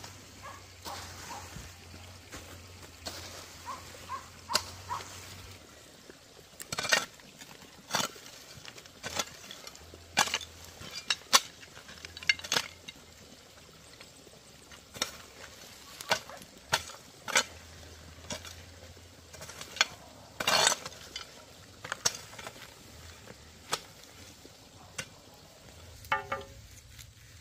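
Hoe blade striking and scraping stony, gravelly soil in a string of sharp, irregular blows, mostly about a second apart, as earth is pulled back over a buried plastic water pipe.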